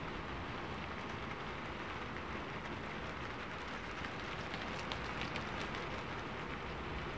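Steady rain falling: an even hiss with faint scattered ticks.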